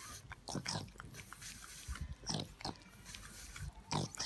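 A pug breathing noisily through its flat nose, with a few short, irregular snorts.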